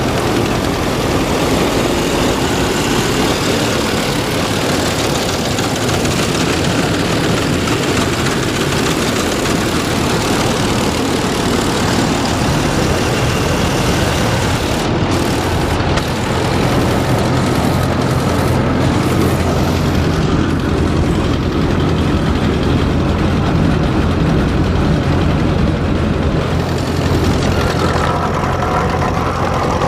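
Gleaner E combine running steadily at constant speed: a loud, unbroken engine and machinery drone with a low hum that holds the same pitch throughout.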